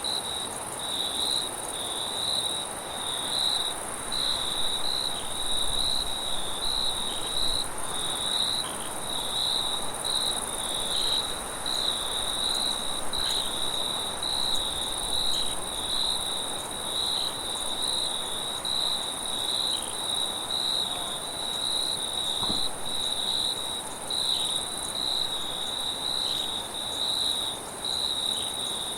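Crickets chirping: one sings in short, evenly spaced chirps, over a continuous higher-pitched trill from others.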